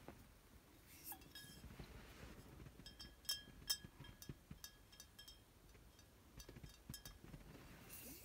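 Glass wine bottles clinking against each other: a string of light, ringing clinks, the two loudest about three and a half seconds in.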